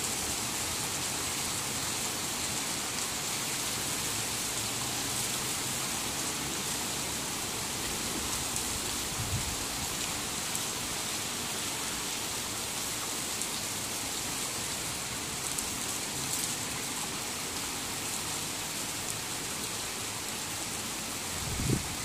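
Torrential rain falling steadily on pavement and grass, a constant even hiss. A brief low thump about nine seconds in, and a louder one near the end.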